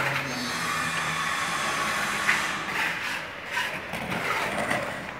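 Water poured from a plastic bottle into a glass of cement-sand mortar, then the wet mix stirred in the glass, with a few sharp clinks of the stirrer against the glass.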